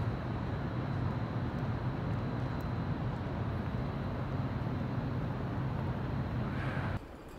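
Steady city-street ambience: a low rumble with a faint, thin high whine over it. It cuts off abruptly near the end.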